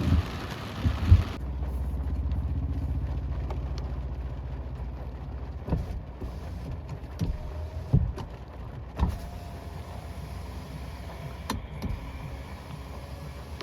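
Rain hiss cuts off abruptly about a second in, giving way to a car's engine idling with a low, steady hum. A few separate knocks or thumps come at intervals.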